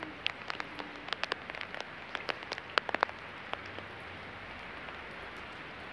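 Rain falling steadily: an even hiss with many sharp taps of drops striking close by, thickest in the first three seconds and sparser after.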